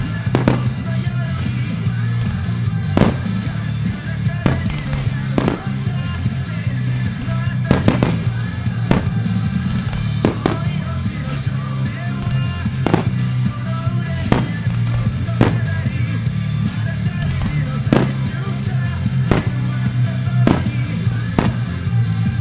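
Fireworks shells bursting with sharp booms every second or so over a loud rock song played through loudspeakers: a music starmine, the fireworks timed to the music.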